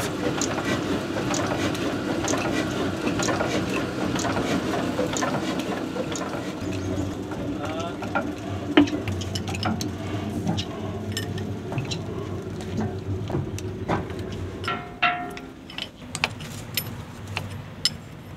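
Metal clinks and clicks of a ring spanner working bolts and fittings on an old stationary diesel engine, in many short knocks that come more often near the end, with voices in the background.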